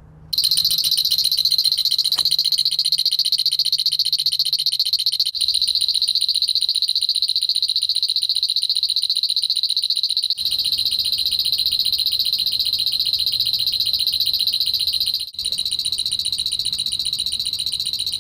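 Bird-X Transonic Pro pest repeller giving out a loud, high-pitched electronic sound, pulsing very rapidly, that comes on just after the start. It breaks off for a moment about every five seconds and resumes with a slightly changed pattern.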